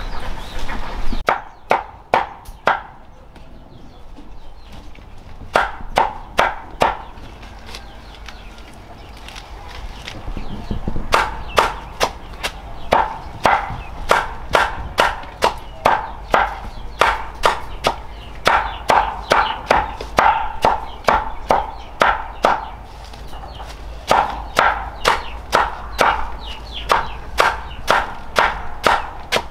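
Repeated chopping strokes with a blade, about two a second. The strokes come in short runs with pauses during the first few seconds, then keep a steady rhythm for most of the rest.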